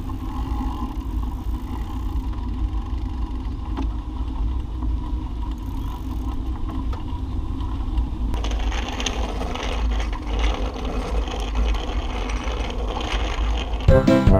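Wind rumbling on the microphone of a camera carried on a moving bicycle, with the steady rush of bike tyres on asphalt. The noise turns brighter and hissier about eight seconds in.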